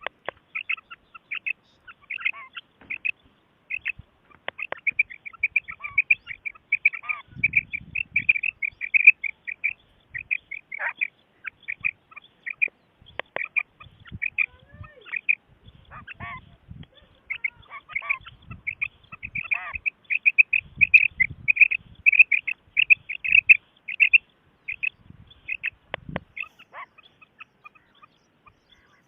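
Common quail calling: a rapid run of short, sharp, high notes repeated over and over, with a brief lull partway through. Faint low thumps occur now and then.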